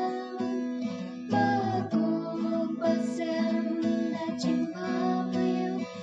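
Acoustic guitar strumming chords in a steady rhythm, as song accompaniment.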